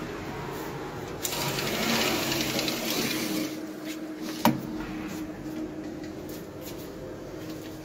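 Electric motor of a motorized roller blind running with a steady hum. A louder rushing noise comes from about one to three and a half seconds in, and there is a single sharp click about four and a half seconds in.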